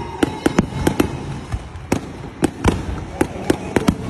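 Aerial fireworks bursting overhead: a rapid, irregular string of sharp bangs, over a dozen in about four seconds.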